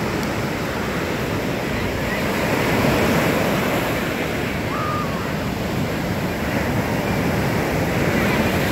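Ocean surf: waves breaking and whitewater rushing around in the shallows, a steady loud rush that swells a little about three seconds in and again near the end.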